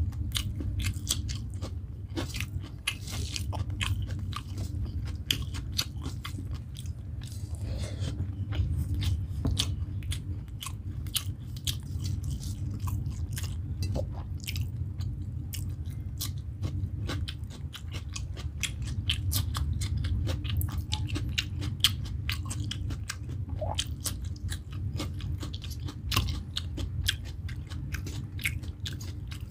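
Close-up sounds of a person eating rice and egg curry by hand: wet chewing and mouth smacks, crunches from raw cucumber slices, and fingers mixing rice on a steel plate, over a steady low hum.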